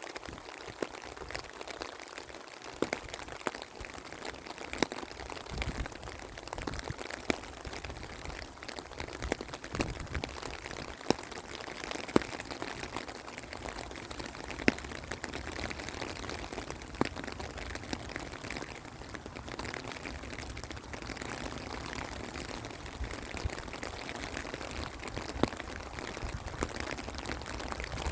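Steady rain falling, an even hiss broken by scattered sharp ticks of single drops hitting nearby.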